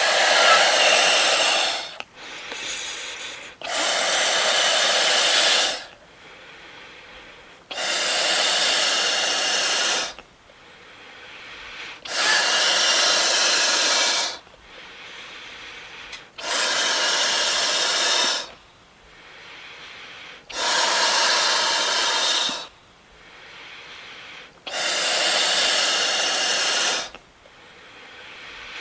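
A balloon being inflated in repeated puffs of air: about seven hissing blows of roughly two seconds each, one every four seconds or so, with a fainter rush of air between them.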